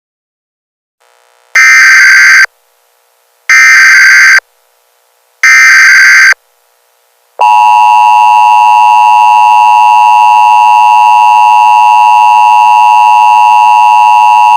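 Emergency Alert System signal: three roughly one-second bursts of loud SAME digital header data tones about two seconds apart. About seven seconds in, the steady two-tone attention signal starts and holds without a break.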